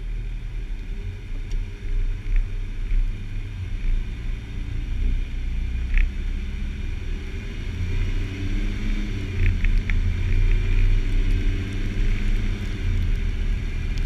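Jeep Wrangler driving on a snow-covered road: a steady low rumble of engine and tyres, picked up by a camera mounted on the front of the vehicle, with a few short sharp ticks around the middle.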